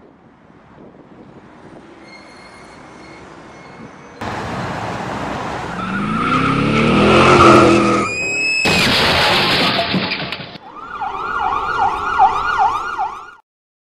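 Sound-effect soundtrack for a toy-car crash: a car engine revving up, a short high screech about eight seconds in, a loud noisy burst, then a police siren wailing in quick cycles near the end.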